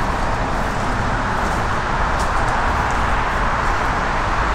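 Steady roar of freeway traffic, a constant tyre-and-engine rush with a low rumble underneath.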